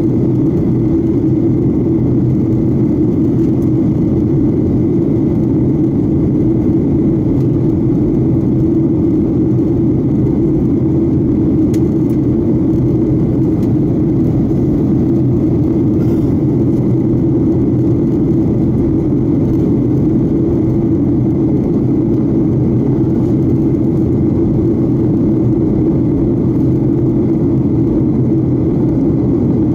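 Steady low drone of an airliner's jet engines and rushing airflow heard inside the passenger cabin during the climb after take-off, with a faint thin high whine riding on top.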